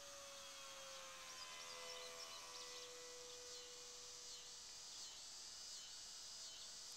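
Faint, steady whine of the E-flite Curtiss N9 model biplane's electric motor and propeller in flight, its pitch dropping slightly about a second or two in as the plane passes. Insects chirp over a constant high hiss.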